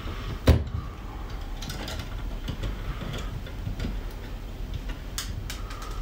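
Wire stripper stripping insulation off electrical wire ends: one sharp snap about half a second in, then a few light clicks of the tool's metal jaws on the wire.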